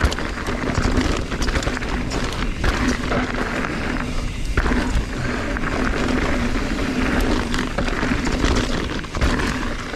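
Mountain bike riding down a loose, dry dirt trail: tyres rolling over dirt and rocks with rattles and knocks from the bike, and a steady low rumble.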